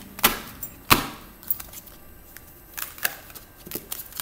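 A deck of tarot cards being shuffled and handled by hand: two sharp card slaps about a quarter second and a second in, then lighter taps and flicks of the cards.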